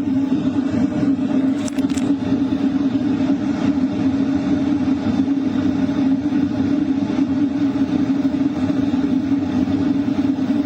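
LF Bros diesel heater running steadily at 4 kilowatts: mostly air rushing from the hot-air duct, with the exhaust pipe outside, as a constant hum. Two brief faint clicks about two seconds in.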